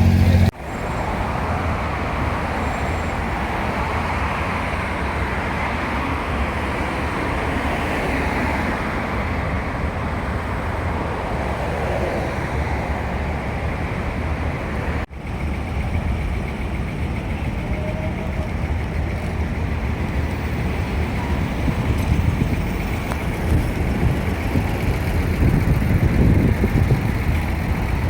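Abra water taxi's engine running steadily under way: a continuous low hum under a wash of noise. The sound drops out briefly twice, near the start and about halfway through.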